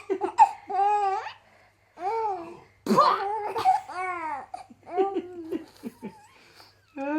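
Four-month-old baby laughing hysterically in several short bursts of high, squealing laughter, with brief pauses between them.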